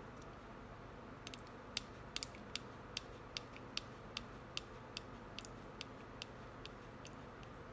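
Small sharp clicks, about two or three a second and growing fainter, from the Serpent 989 two-speed's spring adjustment screw being backed out with a hex driver: the screw clicking against the shift spring as it turns.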